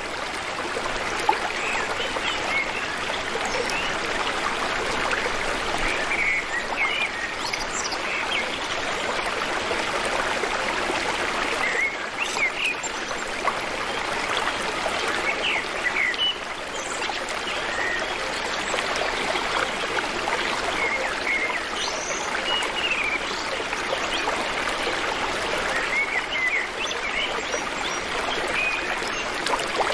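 Steady rush of running water, like a stream, with scattered short bird chirps throughout.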